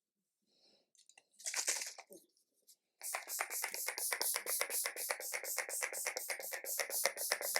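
Setting spray being misted onto the face: one short spray hiss about a second and a half in, then a fast, even run of spray puffs at about seven a second.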